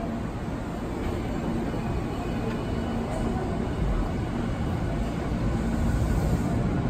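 A Toei Mita Line electric train pulling into a station: a steady rumble of wheels and motors that grows a little louder toward the end.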